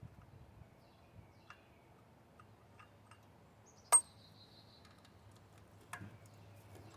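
Hand tools working on an engine's water pump bolts: scattered faint ticks, then one sharp metallic clink about four seconds in that rings briefly, and another click near six seconds.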